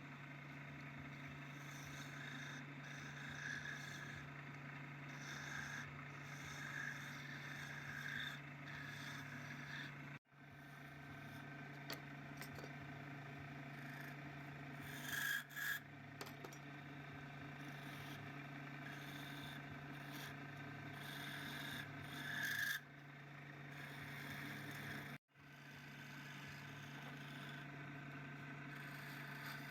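A motor running with a steady hum under a continuous rasping, scraping sound of a tool or abrasive working against a surface. The sound drops out briefly twice, about ten seconds in and again some fifteen seconds later.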